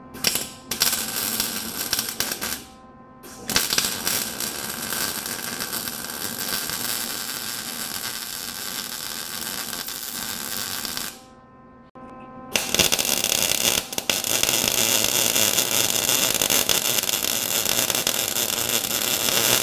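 Electric welding on an exhaust pipe: a loud, steady crackling hiss in three long runs, the first brief, the second about seven seconds, the third from about halfway to the end, with short pauses between.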